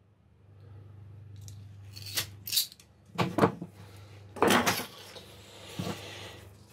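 Metal hand tools, wire strippers and pliers, clicking and clattering as they are handled and set down on a wooden workbench: a few sharp clicks, the loudest clatter about four and a half seconds in, over a low steady hum.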